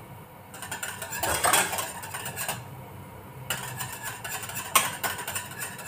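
Wire whisk stirring and scraping in a stainless steel saucepan of caramel cream heating to just below the boil. The strokes come unevenly, loudest about a second and a half in, with a couple of sharp metal clicks near the end.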